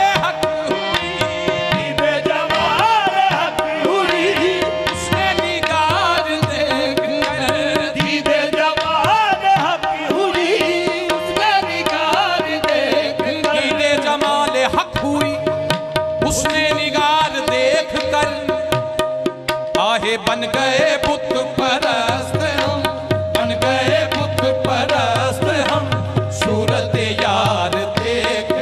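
Qawwali music: harmoniums playing the melody over a steady held note, with tabla drumming and the singers' voices. Continuous and loud, with no break.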